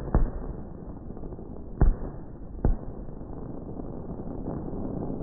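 Aerial firework shells bursting: three sharp bangs, a little after the start, just under two seconds in and near the three-second mark, over a steady low rumble from the display.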